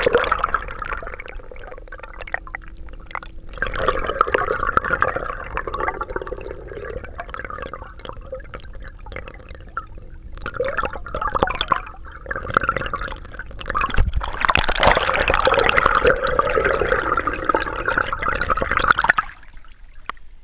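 Muffled rushing and gurgling of river water over a camera held underwater, with two louder surges; the second cuts off near the end as the camera comes out of the water.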